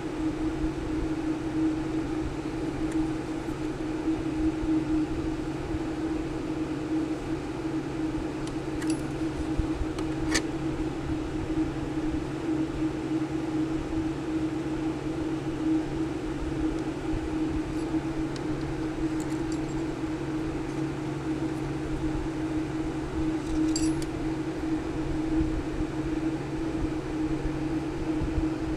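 A steady mechanical hum, like a small fan or motor running, with a few faint clicks about nine, ten and twenty-four seconds in.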